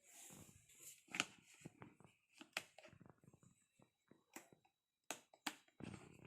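Faint scattered clicks and taps, about five sharper ones, with soft rustling between them.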